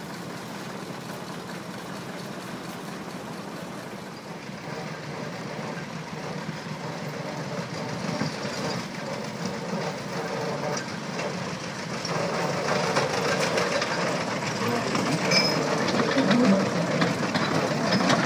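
Small narrow-gauge industrial locomotive's engine running, growing louder from about two-thirds of the way in as it approaches and passes close by, with a rattle of sharp clicks.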